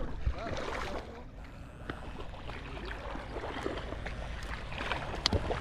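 Steady outdoor wind and water noise, with a sharp click near the end.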